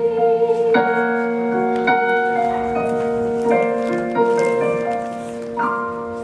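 Korg SP-100 digital piano playing slow, sustained chords, struck about five times and each left to ring and fade; the playing grows softer about five seconds in.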